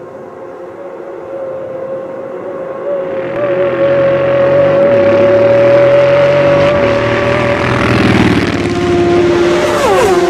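A racing motorcycle approaching at high speed on steady revs, its engine note growing louder, then dropping sharply in pitch as it passes, near the end.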